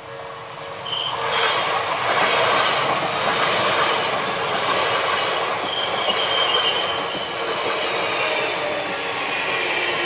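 Level-crossing warning bell ringing; about a second in, an Odakyu electric commuter train arrives and runs past close by, its wheels clattering over the rails with short high squeals.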